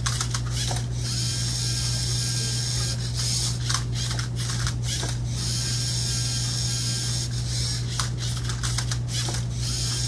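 LEGO Mindstorms EV3 Rubik's Cube-solving robot at work: its motors whir in short runs with brief pauses and clicks as the arm flips the cube and the tray turns it.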